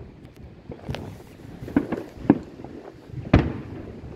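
Aerial fireworks shells bursting overhead: a series of about five sharp bangs, irregularly spaced, the loudest two in the second half.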